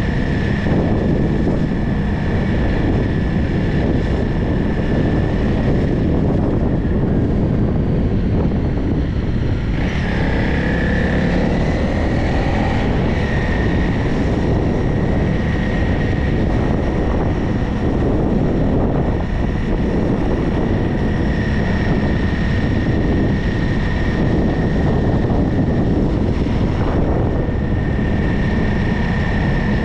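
Wind rushing over the microphone and the road noise of a vehicle on the move, with a steady high whine over it; about ten seconds in, a short rising whine joins in.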